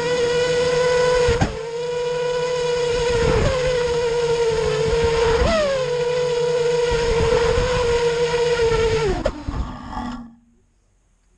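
Five-inch FPV quadcopter's brushless motors and propellers, heard close from the camera on the drone, whining at a steady pitch with a few brief surges. The motors wind down and stop about ten seconds in, as the landed drone is shut off.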